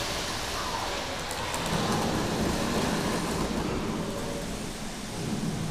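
Steady rumbling hiss of background room noise, with faint distant voices and a few light clicks about a second and a half in.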